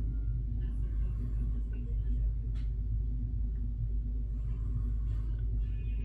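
A steady low rumble, with no clear bird calls standing out.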